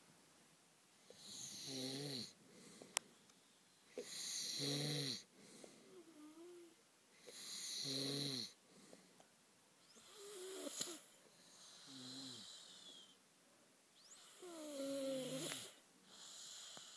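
Boys snoring in their sleep: a rasping, buzzing snore about every two to three seconds, some snores louder than others. A single sharp click about three seconds in.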